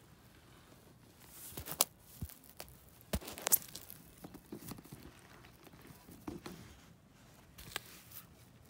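Handling noise of a leather handbag being turned and opened by hand: soft rustling with a few sharp clicks and knocks, the loudest about three and a half seconds in.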